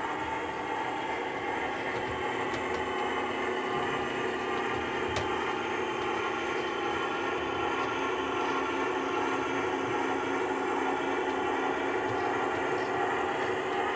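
Model GWR streamlined diesel railcar running along the track, giving a steady diesel engine drone that grows slightly louder as it approaches.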